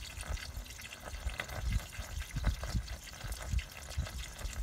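Premixed 50/50 antifreeze coolant poured from a plastic gallon jug through a funnel into a car radiator's filler neck, a steady stream of liquid splashing as the cooling system is refilled after a flush.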